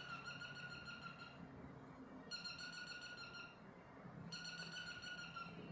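A steady high-pitched tone sounding three times in long, evenly spaced beeps of about a second and a half each, over a faint low hum.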